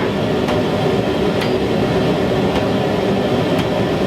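Forge blower running with a steady roar and hum, under four light hammer blows on hot steel at the anvil, about one a second.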